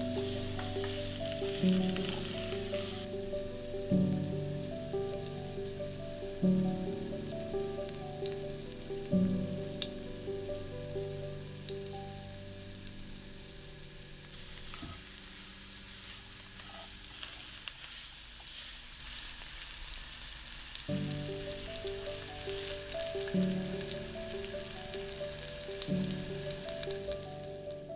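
Wet ground paste sizzling and frying in hot oil in a pan, a steady crackling hiss that grows stronger in the last third, while the paste cooks until its rawness is gone. Soft background music plays over it, dropping out in the middle for several seconds.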